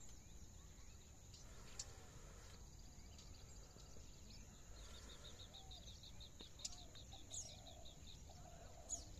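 Faint birdsong: small birds chirping, with sharp single chirps scattered through and a quick run of repeated short notes, about eight a second, in the middle. A steady faint high hiss and a low rumble run underneath.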